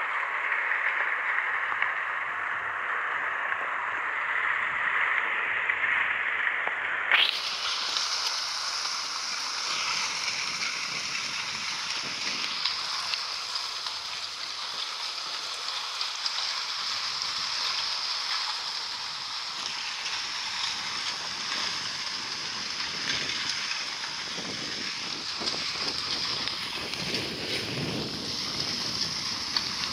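Kayak moving through thin lake ice and open water: a steady hiss and fine crackle of water and ice sloshing around the hull. About seven seconds in, a sharp knock is followed by a brighter, higher hiss.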